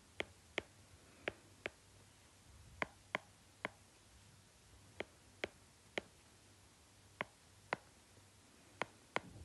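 Stylus tip tapping on a tablet's glass screen while handwriting: about fourteen faint, sharp clicks at an irregular pace, often in pairs.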